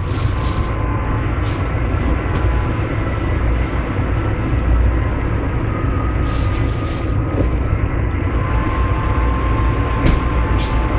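Strong wind blowing, a steady low rumble with faint whistling tones on top and a few brief high hissing gusts about 6 and 10 seconds in.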